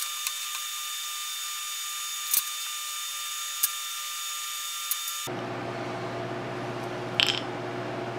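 A few light clicks and taps from small hand tools and a short piece of copper pipe being handled on a workbench, over a steady background hiss. The background noise changes suddenly about five seconds in, and a brief scrape comes near the end.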